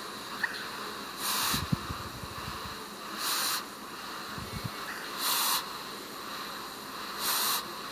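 A premature baby hiccuping softly, a faint low hic about one and a half seconds in and again about four and a half seconds in, under a hiss that puffs regularly about every two seconds.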